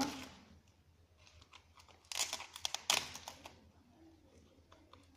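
Crumpled packing paper rustling and crinkling as it is handled, with a burst of crackles about two to three seconds in and a few smaller crinkles after.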